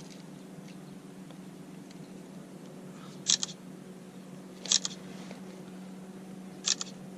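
Camera shutter clicking three times, each a quick double click, about one and a half to two seconds apart, over a steady low hum.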